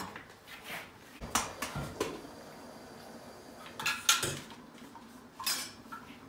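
Metal cookware clinking and knocking against a stainless steel soup pot in a few separate strikes, the loudest about four seconds in and another near the end.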